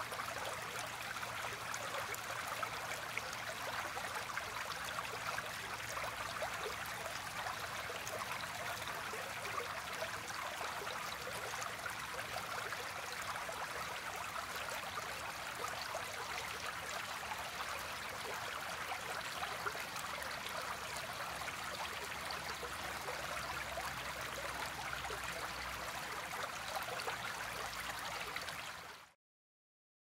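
Steady rush of running water, like a stream or waterfall, with a fine bubbling texture; it cuts off abruptly near the end.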